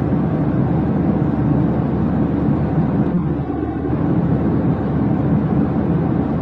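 Steady, dense rumble of vehicle noise, dipping slightly about three seconds in.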